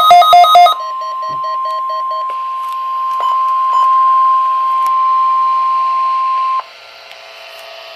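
A rapid beeping alternating between two pitches breaks off under a second in. A steady single-pitch NOAA Weather Radio 1050 Hz warning alarm tone, sent as part of a weekly test of the tone alert, then sounds for about six seconds and cuts off suddenly, leaving faint radio hiss.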